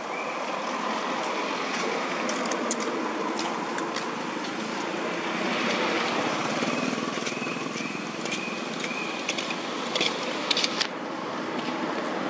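Steady hum of road traffic and motorbikes. A few short, high chirps come around the middle, and several sharp clicks near the end.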